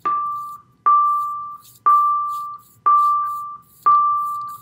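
A single-pitch beep repeating about once a second, five times, each tone starting sharply and fading out, as from an electronic alarm or timer.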